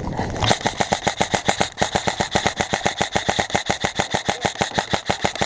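Airsoft rifle firing a long burst on full auto: an even, rapid stream of sharp clacks, about ten shots a second, starting about half a second in.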